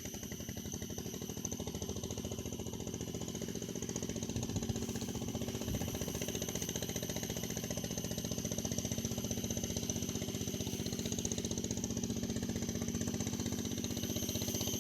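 Spinning fishing reel being cranked steadily, a rapid, even mechanical whirr as line is wound in after lifting the rod to check a bite. It grows slightly louder over time.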